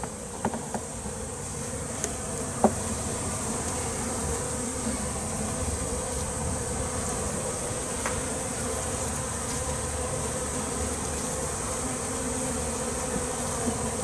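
Honeybees buzzing in a steady hum around an opened nuc box as its comb frames are lifted out for inspection. There is one light knock a little under three seconds in.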